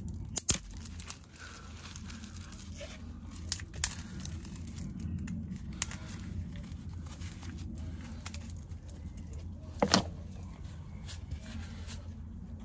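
Dry twigs and garden debris snapping and crackling as they are dropped and handled, in scattered sharp cracks with a louder one near the end, over a steady low rumble.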